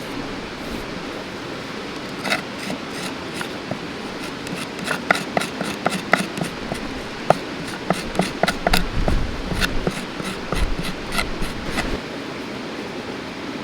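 Irregular knocks and taps of objects being handled, clustering in the middle, over the steady rush of a mountain river.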